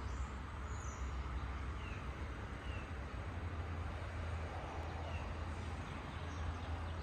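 Outdoor ambience: a steady low rumble with a few short bird chirps now and then.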